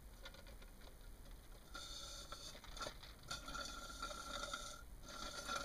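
A drink being slurped through a straw from a plastic cup: three spells of sucking, each a gurgling hiss of air and liquid drawn up the straw, as the cup runs low.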